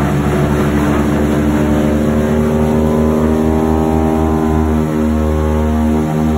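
The PBY-5A Canso's twin Pratt & Whitney R-1830 Twin Wasp radial engines running, heard from inside the cabin: a loud, steady drone with a slow throbbing pulse in the low end.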